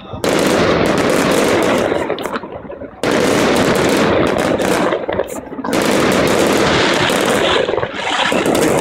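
Aerial fireworks going off in rapid, dense volleys of bangs and crackling, in three long stretches that each start suddenly, with short lulls between them.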